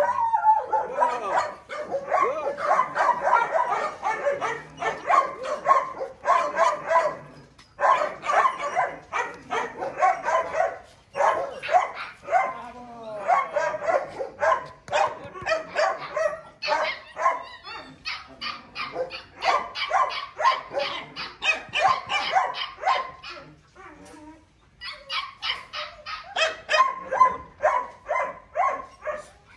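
A dog barking and yipping in rapid, excited strings of short calls, with a few brief pauses.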